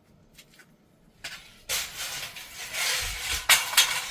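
Handling noise: a rustle that starts about a second in, with two sharp knocks near the end.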